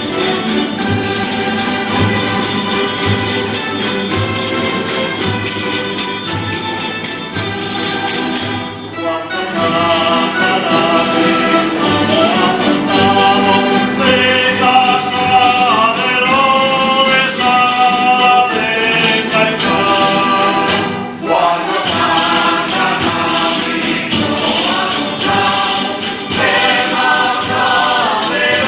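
A traditional despertadores group playing and singing. It opens with about nine seconds of plucked strings and tambourine jingles, then several voices sing a verse together over the instruments, pausing briefly a little after twenty seconds before the singing resumes.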